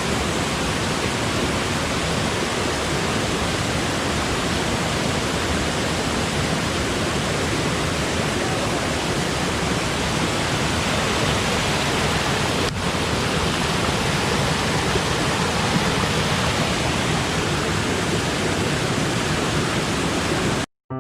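A waterfall pouring with great force: a steady rush of falling water, cutting off abruptly near the end.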